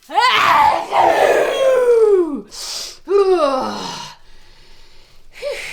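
A woman's loud, exaggerated comic sneeze: long drawn-out cries falling in pitch, broken about halfway by a short hissing burst, then a second falling cry.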